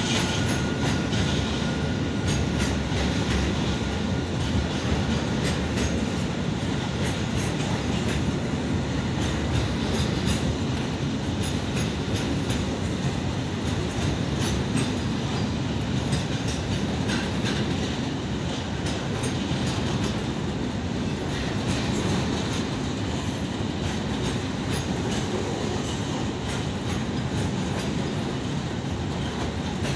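Container wagons of a slow-moving freight train rolling past close by: a steady rumble of steel wheels on rail with a running clickety-clack of wheels over the rail joints.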